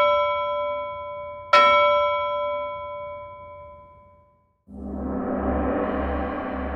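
Two bell-like chimes struck about a second and a half apart, each ringing with several clear tones and fading away. After a brief gap, a gong-like swell with a low hum rises about five seconds in and holds.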